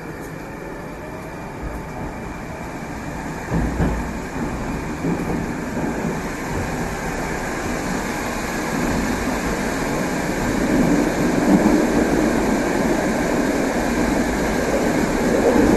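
Moscow metro 81-765 'Moskva' train running between stations, heard from inside the car. The wheels and running gear make a steady rumble that grows louder as the train gathers speed, with a faint rising whine near the start and a single knock about three and a half seconds in.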